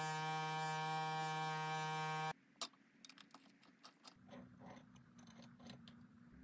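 Small electric motor of a power tool buzzing steadily, then cutting off abruptly a little over two seconds in. It is followed by scattered light clicks and taps, like parts being handled.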